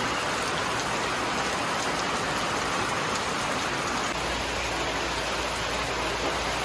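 Steady, heavy rain falling in the rainforest, an even hiss of downpour.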